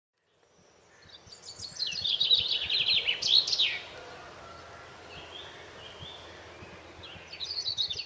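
A songbird singing quick runs of rapidly repeated high notes, each about two seconds long. One run comes shortly after the start and another begins near the end, with fainter chirps between them over faint low background noise.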